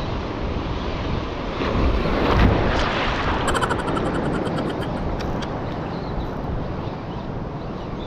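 Wind buffeting the action-camera microphone over surf washing against the reef shore, swelling about two seconds in. A quick run of rapid clicks follows about a second later.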